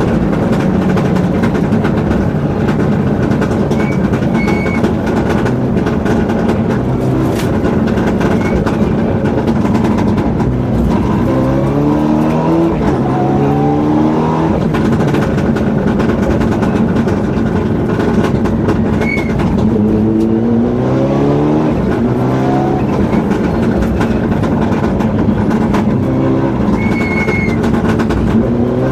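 Inside the cabin of a Mitsubishi Lancer Evo 7 rally car at stage pace, its turbocharged four-cylinder engine runs hard. The engine note climbs and drops back through quick upshifts in runs about a third of the way in, about two-thirds in and near the end.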